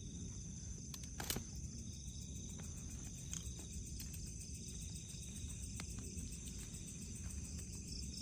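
Steady chorus of night insects, high continuous trilling, with a few soft clicks and taps, the loudest about a second in.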